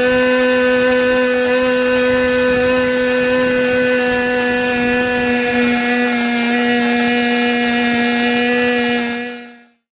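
Small two-stroke nitro glow engine for an RC car running steadily on a run-in bench as it is broken in, a steady high-pitched buzz. The pitch dips slightly about halfway through, and the sound fades out near the end.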